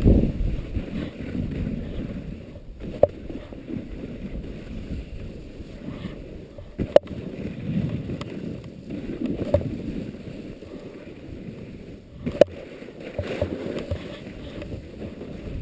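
Wind buffeting an action camera's microphone as a low, gusting rumble, with three sharp clicks or knocks, the loudest about seven seconds in.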